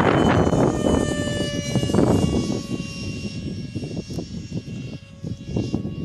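The Stringer 64 model aircraft's motor whining steadily at a high pitch overhead. Gusts of wind rumbling on the microphone are the loudest sound, strongest at the start and again about two seconds in.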